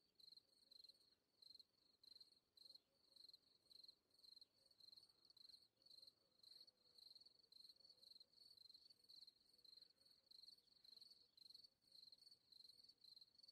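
Near silence with very faint insect chirping: a steady run of short, high chirps, about three a second.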